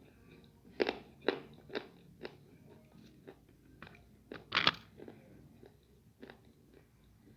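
Close-miked eating of crunchy food: a series of crisp crunches as it is bitten and chewed. The loudest comes a little past the middle, with fainter chewing between.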